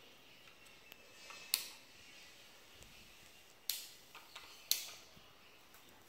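Plastic fan-speed regulator switch clicking as it is worked by hand: three sharp clicks, with a few fainter ticks between.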